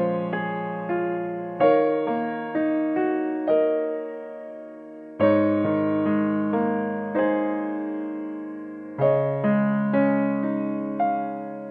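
Background piano music: slow, gentle chords struck every three to four seconds, each fading away, with single notes played between them.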